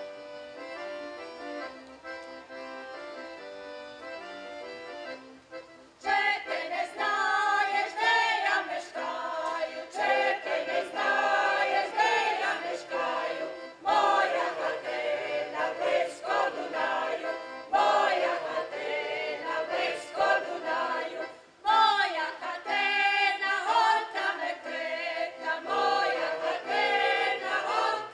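Accordion playing a short introduction, then a group of voices singing a Ukrainian folk song to the accordion from about six seconds in, with brief breaks between phrases.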